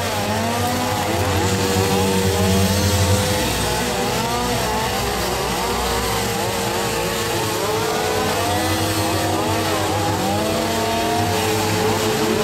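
Several chainsaws idling and revving at once, their engine pitches overlapping and repeatedly rising and falling.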